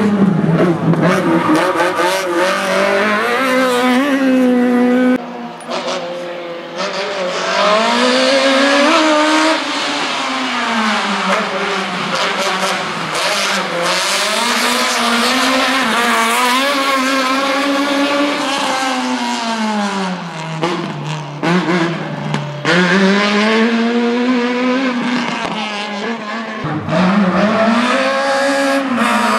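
Fiat 127 slalom race car's engine running hard, its pitch climbing and falling again and again as it revs up and eases off. The revs drop low briefly about five seconds in and again around twenty-one seconds before climbing once more.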